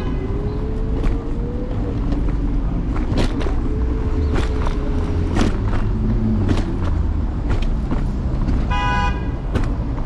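Street traffic heard from a moving electric scooter: a steady low road and wind rumble, with scattered clicks and rattles and a faint rising motor whine. A short, high horn beep sounds near the end.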